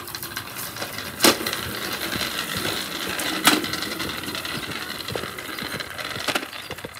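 A child's drift trike rolling on wet concrete: its hard plastic wheels give a continuous gritty rattle, with two sharp knocks, about a second in and again about three and a half seconds in.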